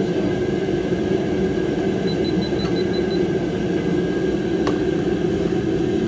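A steady machine hum with a constant tone, like a fan or motor running, with a single sharp click near the end.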